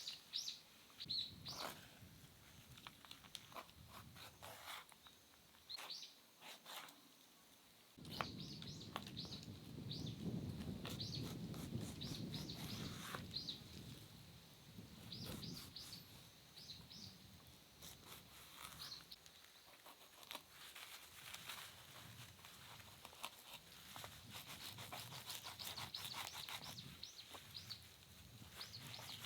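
Small birds chirping, many short high calls repeated throughout, over faint outdoor background noise; a low rumble comes in suddenly about eight seconds in and fades out over the next several seconds.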